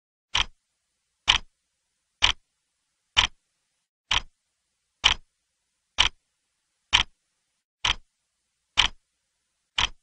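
Clock ticking steadily, a sharp tick a little under once a second, each with a faint second click right after it.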